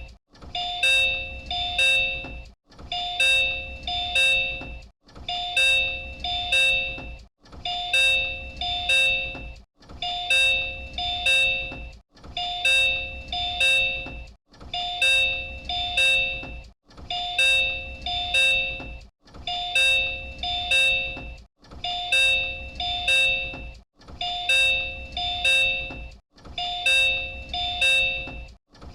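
Disney Resort Line Type 10 monorail's door chime: a short group of electronic chime tones that repeats about every two and a half seconds, over a low rumble.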